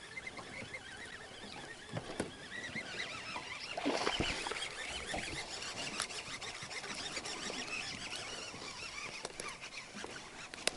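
Quiet handling noises as a caught bass is unhooked by hand: scattered small clicks of lure and line, with a dull knock about four seconds in.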